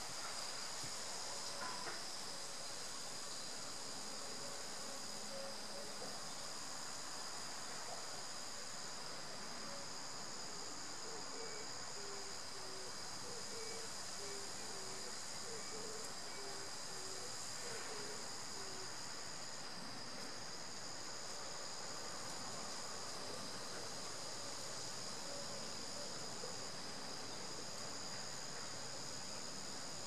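A chorus of insects singing outdoors: one continuous high-pitched buzz, and a higher trill that comes in stretches of a second or two. In the middle there is a run of faint, short low notes from some other animal.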